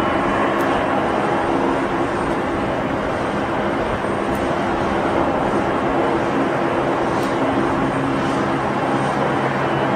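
Aircraft engines running steadily: a continuous loud rush with a few steady low hum tones, and a deeper hum joining about three-quarters of the way through.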